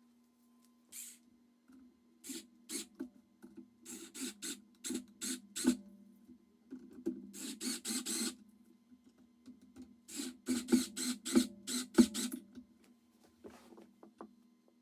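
Power drill driving screws through skateboard rails into the deck, in groups of short trigger bursts a few a second with pauses between.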